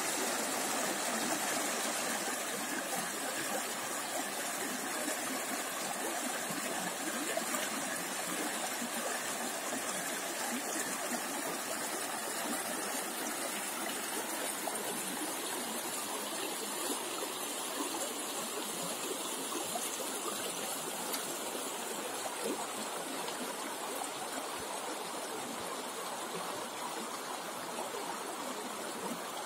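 Shallow river running over stones in a riffle: a steady rushing and babbling of water, slightly quieter near the end.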